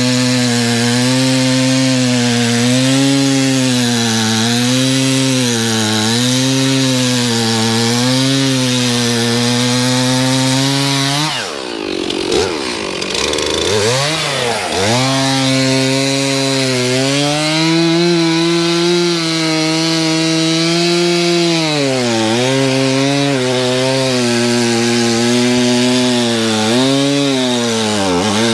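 Stihl two-stroke chainsaw running at high revs while cutting lake ice, its pitch dipping and recovering about once a second. About twelve seconds in, the revs fall away for a few seconds, then climb back up as it cuts on.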